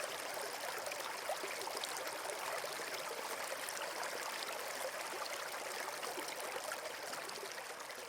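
Water trickling and lapping in a small basin as a home-made sound effect, a steady stream-like wash with small splashes through it, growing a little fainter near the end.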